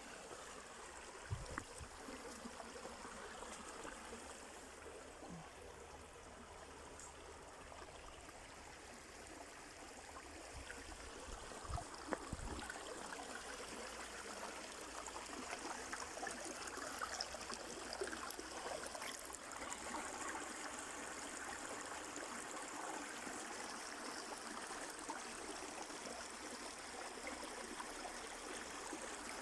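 Small stream running and trickling over stones, a steady gurgling flow, with a couple of brief low thumps about a second in and around the middle.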